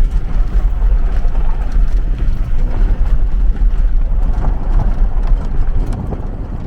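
Off-road vehicle driving on a dirt trail: a loud, steady low rumble of engine and road noise.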